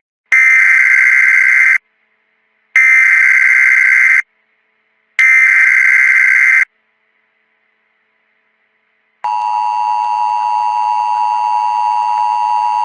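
Emergency Alert System SAME header: three identical bursts of high digital data tones, each about a second and a half long with about a second between them. About nine seconds in, the steady two-tone EAS attention signal begins and holds.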